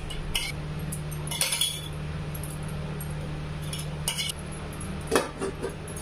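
Light metallic and glassy clinks from bangles and stainless-steel kitchen utensils as rotis are handled over a steel bowl and container, with a sharper knock of steel just after five seconds. A steady low hum runs underneath.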